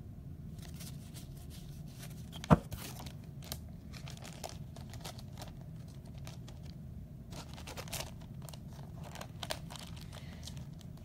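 Trading cards and plastic card sleeves being handled: scattered light clicks and crinkles, with one sharp click about two and a half seconds in, over a faint low hum.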